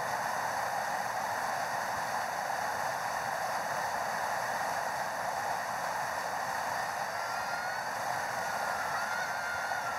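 Whitewater rapids rushing over boulders: a steady, even roar of churning river water.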